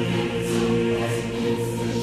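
Background music with long held chords.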